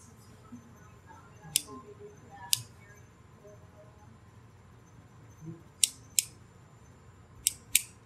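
Hand crimping tool clicking as it is worked on a BNC coax connector. Six short, sharp clicks come at irregular spacing, the last four as two quick pairs near the end.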